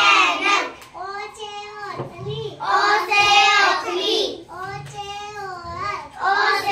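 A young girl chanting the Hindi alphabet vowels in a sing-song recitation, each letter paired with a word. A louder chanted line comes about every three seconds, with softer lines between.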